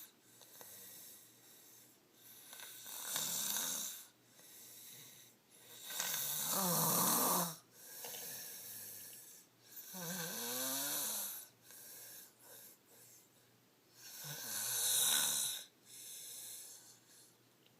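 A girl snoring: four loud snores about three to four seconds apart, with quieter breaths between.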